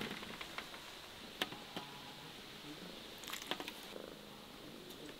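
Quiet outdoor background with a few faint, sharp clicks and taps, a small cluster of them in the second half.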